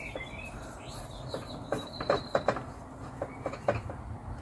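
Scattered light clicks and knocks of a plastic radio handle and screwdriver being handled while the handle is fitted and a screw lined up, with faint bird chirps behind.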